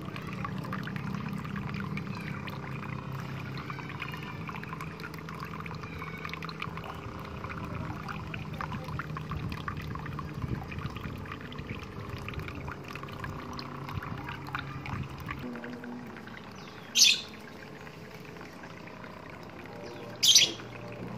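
Water jetting from an outlet in the side of a model boat's hull and splashing into a plastic tub, with a steady low hum under it, until both stop about three-quarters of the way through. Near the end, two short, loud bird chirps.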